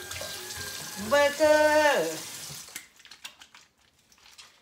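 Kitchen tap running into a steel sink as hands are rinsed, shut off a little under three seconds in, then faint wet rubbing and clicks of soaped hands. A person's voice speaks briefly over the water about a second in, the loudest sound.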